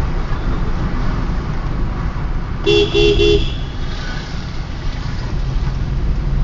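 Vehicle horn beeping three times in quick succession, about three seconds in, over the steady low rumble of a moving vehicle's engine and road noise.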